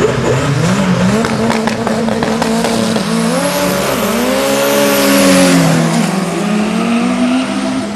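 Drag-race car engines revving hard, their pitch rising and falling, as a car does a burnout with its rear tyres spinning and squealing. The noise swells to its loudest about halfway through.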